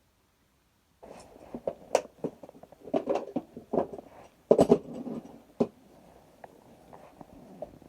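Handling noises from work on the furnace: an irregular run of clicks, knocks and scraping that starts about a second in, is busiest in the middle and trails off into faint rustling.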